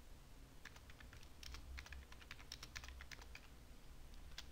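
Computer keyboard being typed on: a faint, quick, uneven run of keystrokes, then a single key click near the end.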